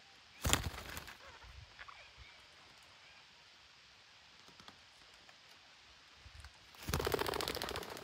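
Two flurries of rapid wing beats from green parakeets on a branch. The first is short, about half a second in; the second, near the end, is a longer run of fast beats.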